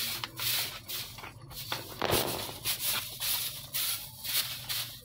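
Straw hand broom sweeping a dry dirt floor strewn with straw and chaff: a run of quick, scratchy swishes.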